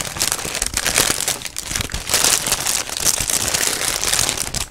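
Burger King paper burger wrapper crinkling and rustling as hands fold it back around the burger, a dense run of crackles.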